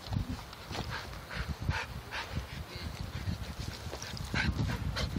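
Two dogs, a Samoyed and a husky, play-wrestling: irregular scuffling in wood chips mixed with short dog vocal noises.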